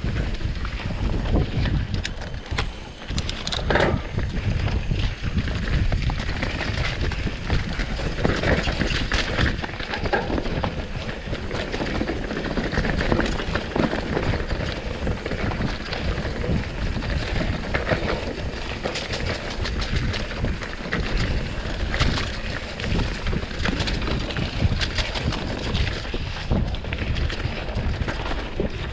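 Mountain bike ridden fast along a dirt singletrack: a continuous clatter and rattle of the bike over the rough ground and tyres on dirt, with wind rumbling on the microphone.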